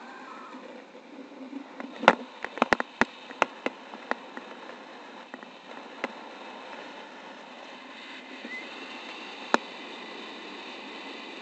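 Steady airflow noise on the microphone of a camera carried by a paraglider in flight. It is broken by a quick run of sharp clicks or taps about two to four seconds in and a single click near the end.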